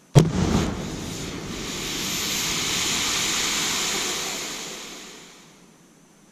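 Half-pound Tannerite charge strapped to an old refrigerant tank going off: one sharp bang just after the start, then a long hiss that swells for a couple of seconds and fades out over about five seconds.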